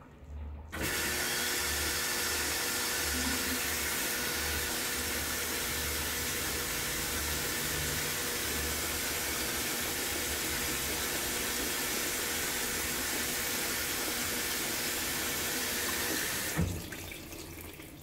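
Brastemp 14 kg top-load washing machine filling with water: a steady gush of water pouring into the tub that starts about a second in and cuts off sharply near the end with a short knock, as the tub tops up toward the high water level.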